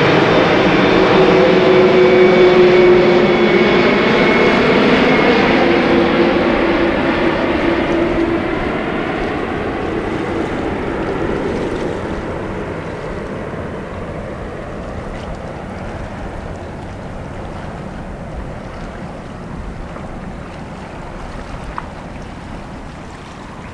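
Boeing 777-200 airliner's twin turbofan engines passing low overhead on final approach: loud jet engine noise with steady whining tones, loudest a few seconds in, then fading steadily as the aircraft flies away toward the runway.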